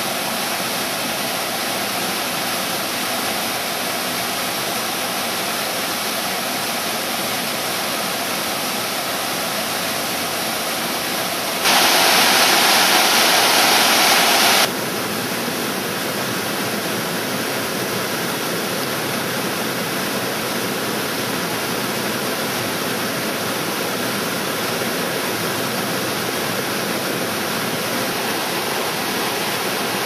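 Waterfall rushing steadily over tiered limestone cascades. Near the middle there is a louder, hissier stretch of about three seconds that starts and stops abruptly.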